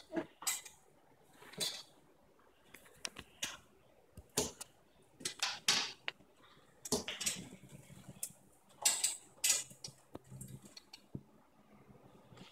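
Irregular small plastic and metal clicks, with short rustles, as a curtain and its gliders are handled and slid into an IKEA Kvartal curtain track.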